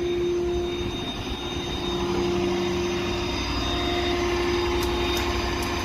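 Flatbed tow truck's engine running steadily, a continuous drone with a low rumble and a steady hum. A few light clicks come near the end.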